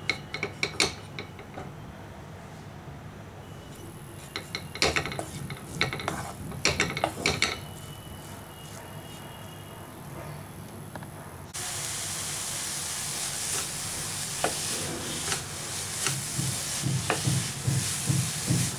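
Wooden spatula stirring and scraping grated beetroot frying in ghee in a metal pan, in bursts of quick scrapes. About two-thirds of the way through, a steady sizzling hiss comes in suddenly and runs on under the stirring.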